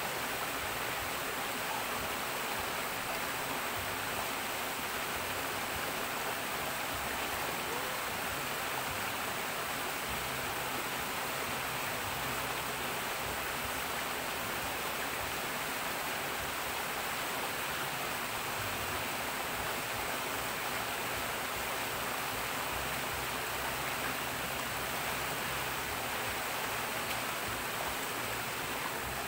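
Steady rush of water pouring and churning into a stone-walled swimming pool.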